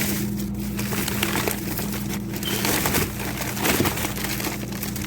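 Plastic bags of frozen food rustling and crinkling as they are handled, over a steady low hum.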